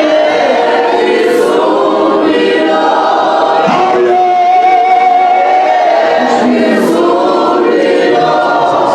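A church choir singing a gospel song, many voices together.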